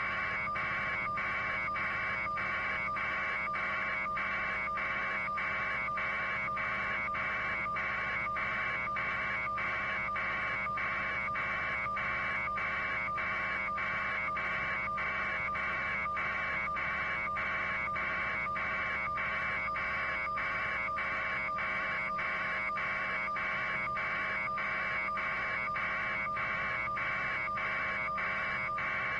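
A steady electronic-sounding buzz that pulses evenly about twice a second, over a constant low hum.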